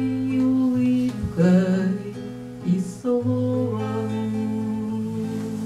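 A woman singing a Russian romance while accompanying herself on acoustic guitar. She sings the song's closing phrase and ends on long held notes.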